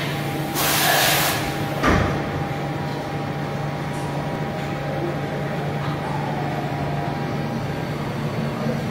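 Mazak Integrex 30 Y CNC multitasking lathe running under coolant: a steady machine hum with a steady higher tone over it. A loud hiss comes about half a second in and lasts about a second, and a single sharp clunk follows just before two seconds in.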